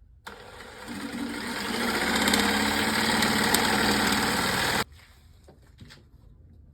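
Electric jigsaw motor running: it winds up over the first couple of seconds, runs steadily, then stops abruptly about five seconds in.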